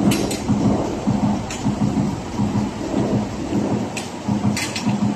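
VF600 automatic sausage filler running as it stuffs a large-calibre sausage: a steady rumble with a hum that pulses about twice a second, and a few sharp clicks.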